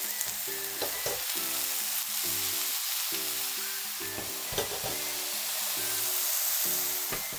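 Mentsuyu poured into a hot frying pan around stuffed aburaage fried tofu pouches, sizzling steadily as it hits the hot pan. Background music with a steady beat plays under it.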